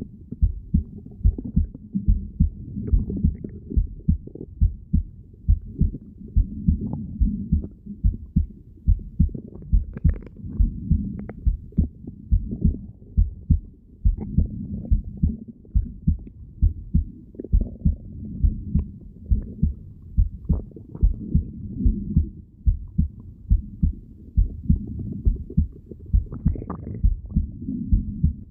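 Heartbeat heard through a stethoscope: a steady, fairly quick train of low thumps over a low rumble.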